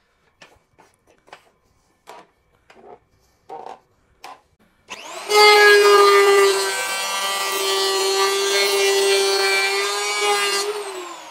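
Total TL7508226 electric hand planer switched on about five seconds in, its motor and cutter block whining at a steady pitch while it shaves a pass along hard meranti wood. Near the end it is switched off and spins down, the whine falling in pitch. Before it starts there are a few light taps and knocks.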